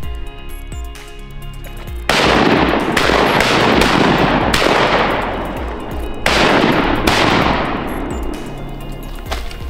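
Shotgun volley at incoming ducks: about five loud shots spread over some five seconds, each trailing off in a long echo. Background music runs underneath.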